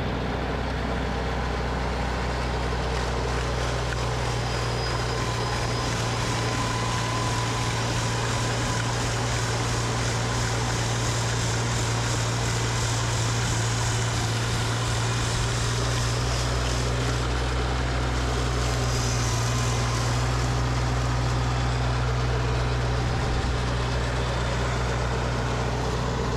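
Tractor engine and snowblower running steadily while clearing heavy, sticky snow: a constant low engine drone with a hiss of thrown snow over it.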